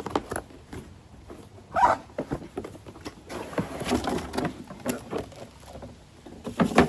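Cardboard box being opened and its packaging handled: scraping, rustling and scattered knocks, with a sharp knock near the end.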